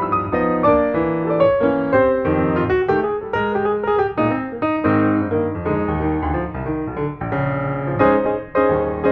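Background piano music: a steady run of single struck notes and chords at a gentle tempo.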